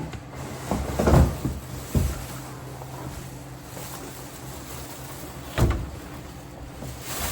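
A few knocks and thuds of things being handled and set down: a cluster about a second in, another about a second later, and a sharp one near six seconds.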